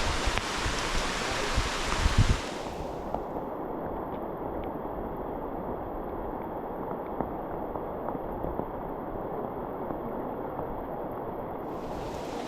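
Steady hiss of rain falling in the forest, with a few low thumps about two seconds in. From there on the rain sounds duller and muffled, with faint scattered drips.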